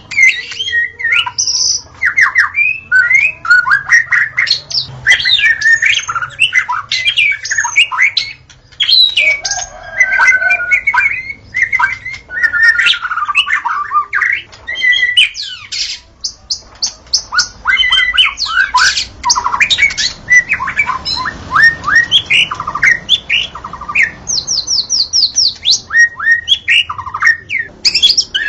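Wild white-rumped shama singing a long, varied song of clear whistles, pitch glides and quick trills, with hardly a break.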